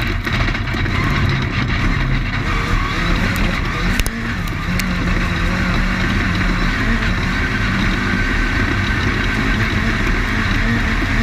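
Off-road race car's engine running steadily at speed, heard from on board, with a sharp knock about four seconds in.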